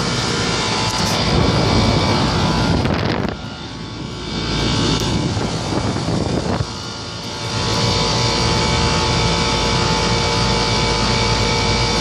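Central air conditioner condensing units running: a steady rush of air from the condenser fans over a steady hum, dipping in level twice for a moment.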